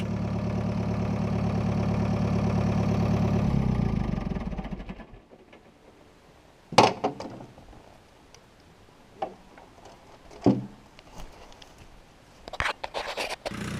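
Fiat Hesston 80-66 DT tractor's diesel engine running steadily, then fading away about four to five seconds in. After it, a handful of sharp knocks and clicks, the first of them the loudest.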